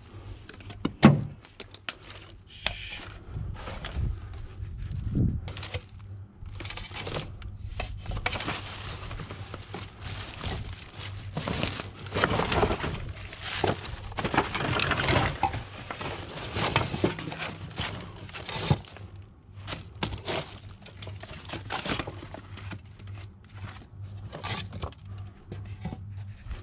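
Hand work on discarded fridges to strip out their copper pipework: a run of sharp snaps, knocks and crinkling, with one loud knock about a second in and the busiest, noisiest stretch in the middle.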